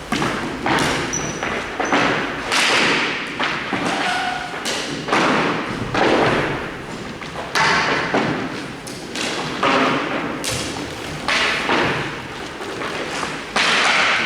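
A dozen or so sharp thuds and slaps at irregular intervals from hockey play: sticks striking the ball and hard impacts.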